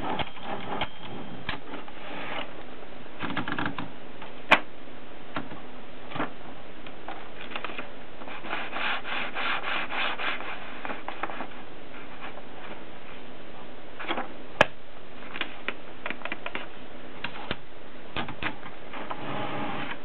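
An Adler Tippa S portable typewriter being handled: rubbing and scraping with scattered small mechanical clicks, a quicker run of clicks near the middle, and two sharp, louder clicks, one about four seconds in and one about fourteen seconds in.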